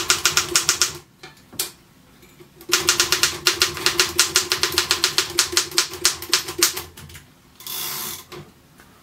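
Royal KMM manual typewriter being typed on: a few keystrokes, a pause, then a quick steady run of typebar strikes at about five a second. The ribbon selector is on white (stencil position), so the ribbon stays down and the typefaces hit the bare platen. A brief rush of noise comes near the end.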